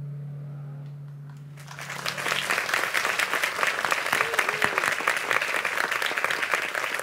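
A held low note from the song fades out, then an audience breaks into applause just under two seconds in and keeps clapping.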